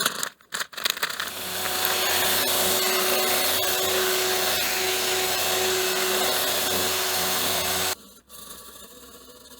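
A few knocks, then an electric motor tool running steadily with a constant whine for about seven seconds before cutting off.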